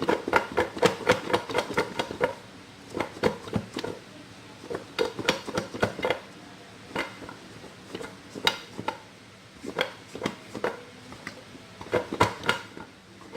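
Breadfruit pieces knocking against the sides of a cooking pot as it is shaken to coat them in crispy frying flour. The knocks come fast and dense for about two seconds, then slower and more scattered.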